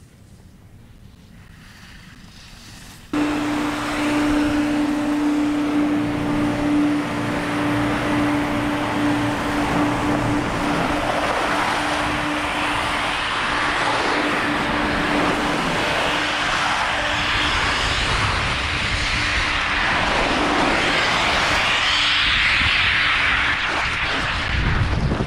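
Snowmaking guns running on the slope: a loud, steady hiss with a humming tone under it, mixed with skis scraping over snow. It starts abruptly about three seconds in, and the hum fades in the second half while the hiss continues.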